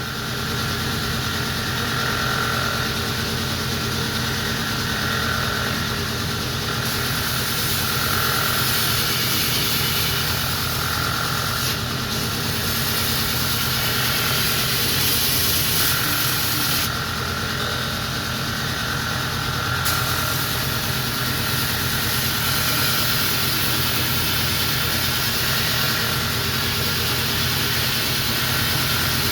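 Belt grinder running steadily while a bill hook's edge is ground freehand on the slack belt; the high grinding hiss rises and falls as the blade is worked against the belt, dropping away for a few seconds about two-thirds of the way through.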